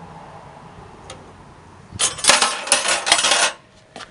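About two seconds in, a burst of metallic clinking and clattering lasting about a second and a half: metal parts or tools being handled and knocked together.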